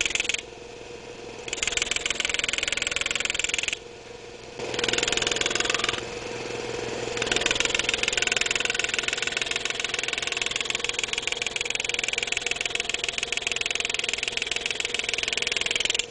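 GRS GraverMeister pneumatic engraving handpiece hammering a graver through steel as it cuts veining into the engraved design, making a fast, buzzing run of ticks. It stops and starts: it breaks off about half a second in and again near four seconds, pauses briefly around six seconds, then runs steadily through the second half.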